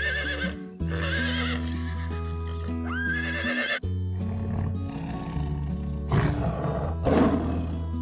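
Horse whinnying: high, wavering neighs a few times in the first half, one rising sharply about three seconds in, over background music. Two loud, rough sounds follow about six and seven seconds in.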